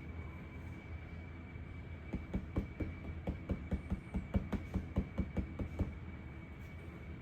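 A quick run of soft knocks and taps, about five a second for nearly four seconds, from the packaging of the wall decor being handled while it is unboxed, over a steady low hum and a faint high whine.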